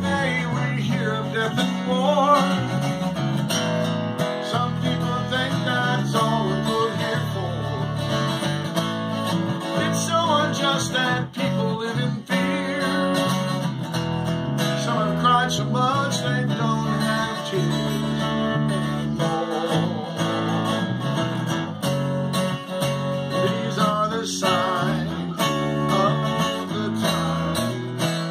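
Acoustic guitar strummed with an electric bass guitar playing along, its notes stepping through the chord changes, and a wavering lead melody above them.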